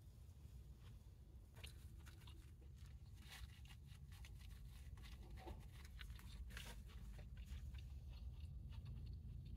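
Close-up chewing and crunching of fast food, a run of small wet mouth clicks over a low steady hum.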